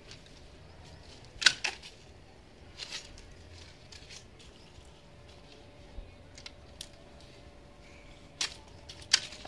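Pruning shears snipping plant stems and leaves: a handful of sharp, irregular snips and clicks, the loudest about a second and a half in, over a faint steady hum.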